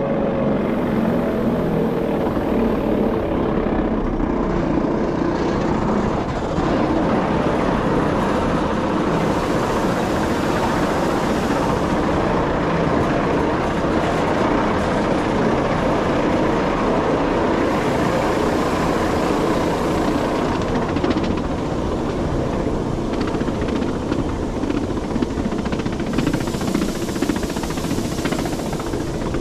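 Cogwheel (rack) train running downhill: a steady, loud drone of its motors and the cog gear meshing with the rack rail, mixed with wheel-on-rail noise. A high hiss swells and fades every several seconds.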